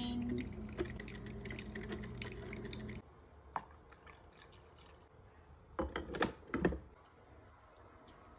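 Mr. Coffee 5-cup coffee maker starting to brew: a steady hum with hiss and dripping, which stops abruptly about three seconds in. After that it is quieter, with a cluster of sharp clicks and knocks around six seconds in.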